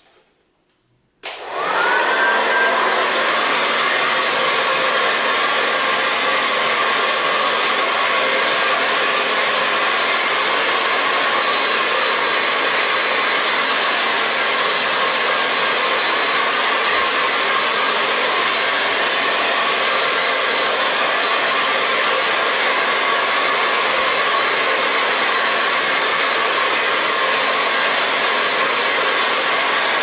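Hair dryer switched on about a second in, its motor spinning up with a brief rising whine, then running steadily: a continuous rush of blown air over a steady motor hum.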